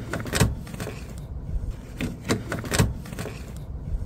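A handful of sharp clicks and knocks as the service panel of an Onan diesel generator is worked loose and slid out of its housing at an angle.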